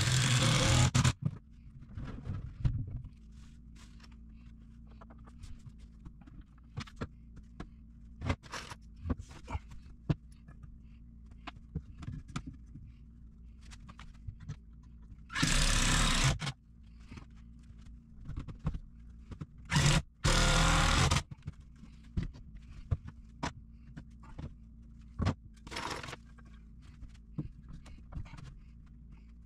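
Cordless drill driving screws into 2x4 lumber in bursts of about a second: once at the start, once midway, then twice in quick succession. Between the bursts come small knocks and clicks of wood and tools being handled.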